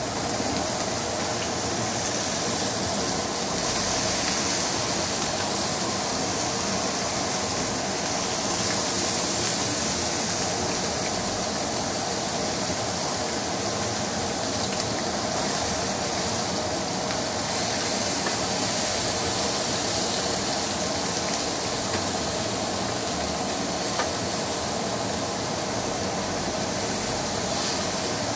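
Pork sizzling steadily on a hot electric grill plate, with a couple of faint clicks near the end.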